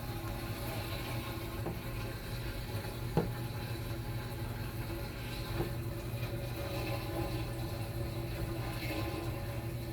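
Samsung washing machine running, a steady hum with water moving inside, and one sharp click about three seconds in.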